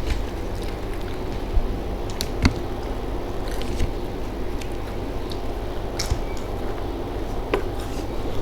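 A person eating: wet chewing with a few sharp clicks and crunches scattered through it, over a steady low background hum.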